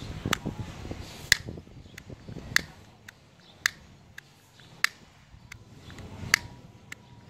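Plastic rocker and slide switches on a motorcycle handlebar switch block (Hi/Lo headlight switch) being flicked with a thumb, giving sharp clicks roughly once a second with fainter clicks between.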